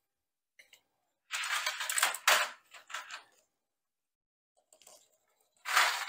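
Motorcycle roller drive chain rattling and clinking as it is handled and fed onto the rear sprocket: a jangly burst of metal links for about two seconds starting a little over a second in, and another short one near the end.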